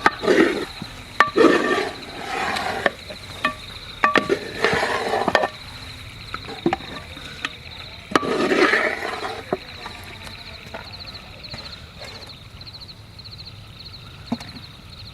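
An insect, cricket-like, trilling steadily on one high note, in rapid pulsed chirps in the second half. Sharp clinks and knocks come now and then, with a few louder scraping bursts in the first half, typical of cooking utensils.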